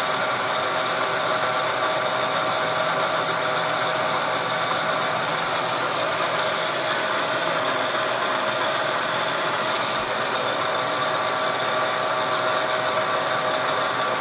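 Bridgeport milling machine spinning a homemade fly cutter with a single-point carbide tool at 450 rpm, taking a light skim cut across aluminum engine cases under slow power feed. A steady machine whir with a fine, rapid, even ticking.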